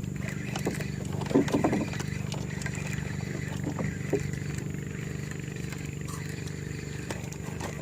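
A motor running steadily with a low, even hum, with a few brief faint vocal sounds about a second and a half in.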